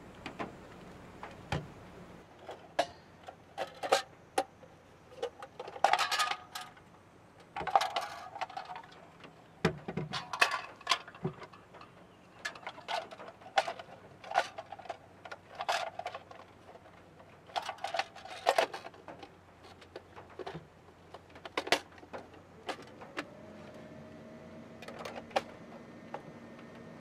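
Hard plastic parts of a camping lantern being handled and fitted together: a string of light clicks and clatters. Near the end a small electric motor starts with a short rising whine and keeps running steadily.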